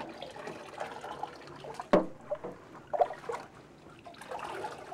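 Water scooped up in a small bowl and poured over a puppy standing in a stainless steel sink, splashing and trickling, with a sharp knock about two seconds in.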